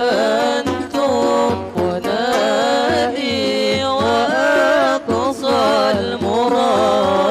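Hadroh ensemble performing an Arabic qasida: a voice singing a melismatic, ornamented melody over a steady beat of rebana frame drums.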